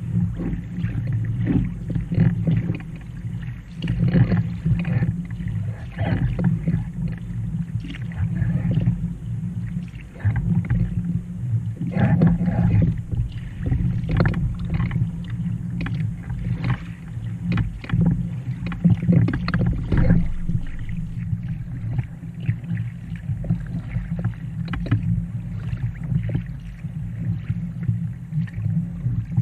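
Water splashing and lapping against a kayak's hull as the paddle works the water, in irregular splashes over a steady low rumble.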